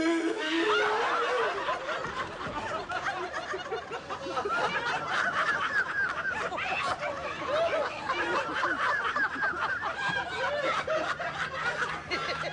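A crowd of passengers laughing together, many voices overlapping in chuckles and loud cackles. It breaks out suddenly at the start and keeps going.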